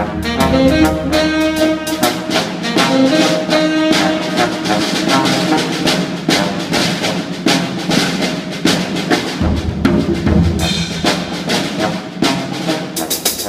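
Music with brass instruments over drums keeping a steady beat.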